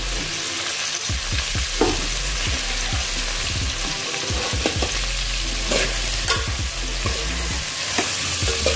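Potatoes, cauliflower and tomatoes sizzling in oil in an aluminium pot while a metal spatula stirs them, with scattered clinks and scrapes of the spatula against the pot.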